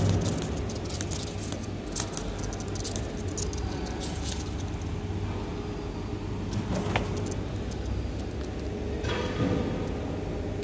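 Scattered light clicks and paper crinkling as a hand handles fledgling oriental magpie-robins on a sheet of paper, thickest in the first few seconds, over a steady low hum.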